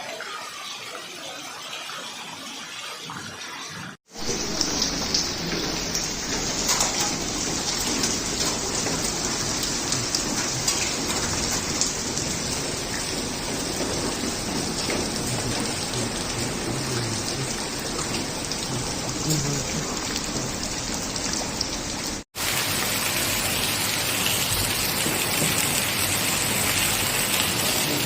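A heavy storm downpour pelting hard surfaces in a dense, continuous patter. Three separate recordings are joined by abrupt cuts, about four seconds in and again past the twenty-second mark; the first stretch is quieter.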